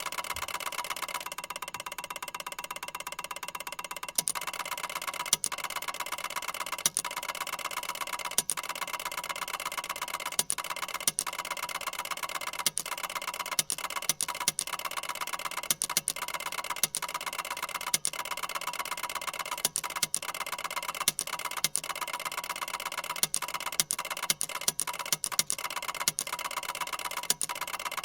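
Ticker tape machine running: a steady fast mechanical chatter, with louder sharp clacks at irregular intervals starting about four seconds in.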